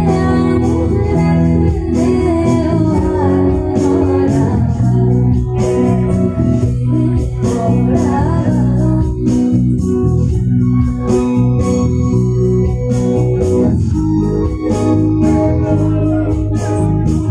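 Live rock band playing amplified: sustained keyboard chords over bass guitar and electric guitar, with a melody line gliding above at times.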